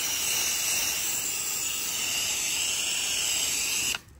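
Steady hiss of a pressure washer's water spray, cutting out abruptly near the end.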